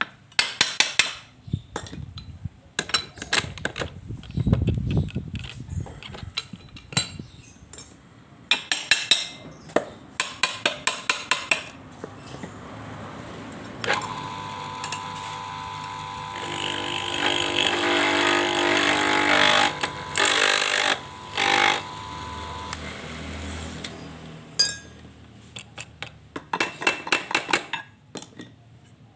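Workshop tool noises: several bursts of rapid, sharp taps and knocks. Around the middle, a small power tool runs steadily for about ten seconds before stopping.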